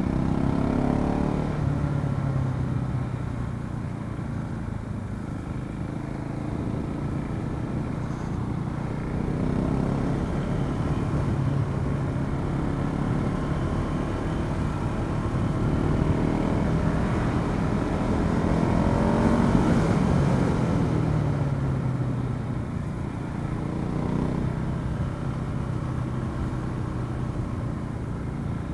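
KTM motorcycle engine heard from on board with wind rush, its revs rising and falling several times through the bends, loudest about two-thirds of the way through.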